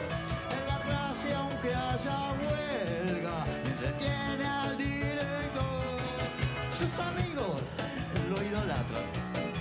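Live band music with piano and electric guitar playing over a steady beat, and a voice gliding in and out at times.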